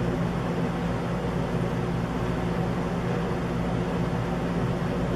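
Steady low hum with a layer of hiss, unchanging, like a fan or air conditioner running.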